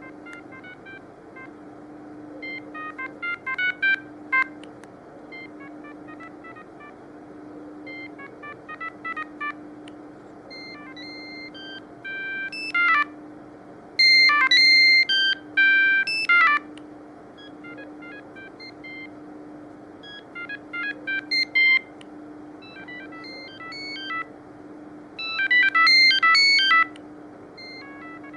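Siemens CX65 mobile phone playing several of its built-in ringtones in turn. Each is a short electronic melody of quick beeping notes, with brief pauses between phrases; the loudest phrases come in the middle and near the end.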